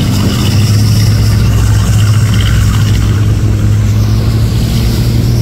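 Fishing boat engine running steadily at speed during a boat race, a loud, even drone with a rush of wind and water over it.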